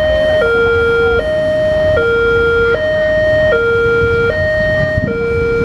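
Indonesian railway level-crossing alarm sounding a two-tone hi-lo siren, switching between a higher and a lower note about every 0.8 seconds. It sounds while the barriers are down for an approaching train. A low rumble runs beneath.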